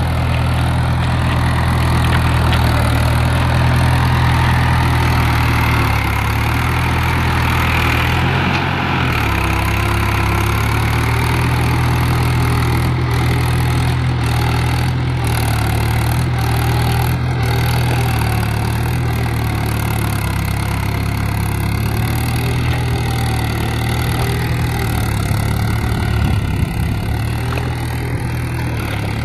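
Mahindra 415 DI tractor's four-cylinder diesel engine running steadily while pulling a plough.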